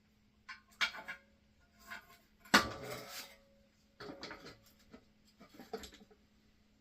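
Metal clinking and clattering of hand tools and motorcycle parts being handled, in several short bunches of knocks, the loudest about two and a half seconds in.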